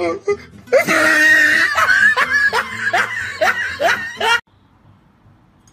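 A person laughing hard in a rapid run of bursts, about four a second toward the end, cut off abruptly a little over four seconds in, leaving only faint hiss.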